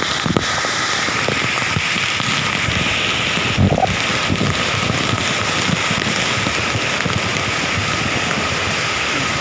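Waterfall water falling and splashing: a steady rushing hiss full of small crackling spatters, with one brief low thump about four seconds in.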